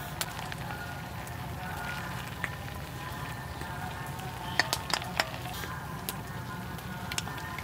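Soup bubbling at a steady boil in a clay pot, with a few sharp clinks of a metal ladle against the pot and snail shells about two thirds of the way through.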